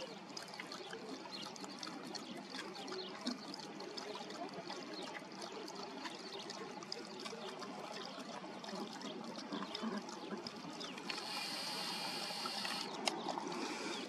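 Dog lapping water from a shallow bowl: a quick run of small wet splashes. A brighter hiss comes in for about two seconds near the end.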